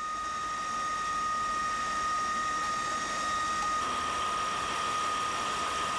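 Electric diamond core drill running steadily while boring into the natural-stone masonry of a bridge pier, a steady high whine over a hiss. The hiss grows a little louder about four seconds in.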